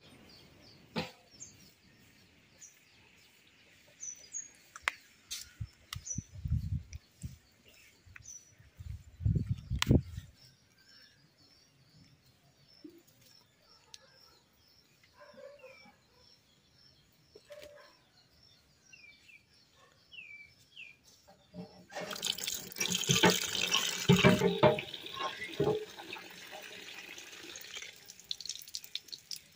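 Water gushing from an iron hand pump and splashing into a steel bowl, starting about two-thirds of the way in, strongest for the first couple of seconds. Birds chirp now and then throughout, and a few low thumps come about a third of the way in.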